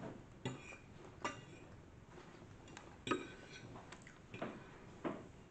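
A metal fork clinking and scraping against a ceramic plate as noodles are picked up: several short, light taps spread out, separated by quiet.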